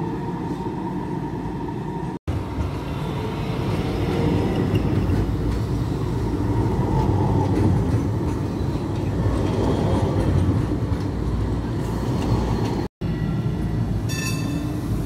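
Tram running on rails: a steady low rumble and running noise, with a brief pitched tone near the end. The sound drops out for an instant twice, at cuts in the recording.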